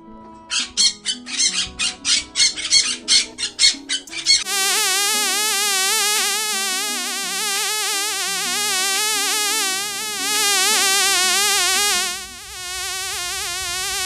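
Animal sound effects over background music: a fast series of short, harsh calls, about three a second, then a long, loud, continuous warbling buzz that wavers rapidly in pitch.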